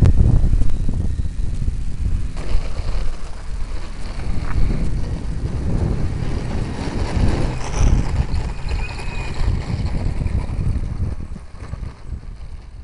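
Wind buffeting the microphone: a loud, uneven low rumble that fades away near the end.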